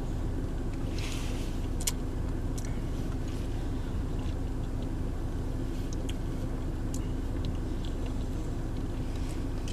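Steady low hum of a car idling inside its cabin, with a few faint clicks.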